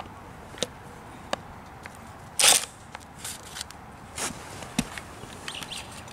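Metal hand tools clinking and scraping on a kei truck's front strut assembly while the top nut is worked loose: a scattering of sharp clicks, with a louder scraping rattle about two and a half seconds in.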